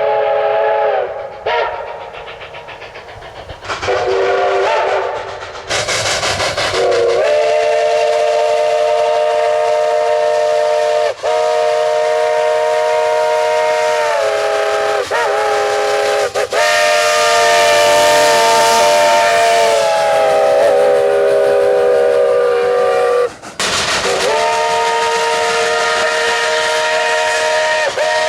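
Steam locomotive's chime whistle blowing, several notes sounding together as a chord over steam hiss. A few short toots come first, then long drawn-out blasts with brief breaks, the pitch sagging as each blast is shut off.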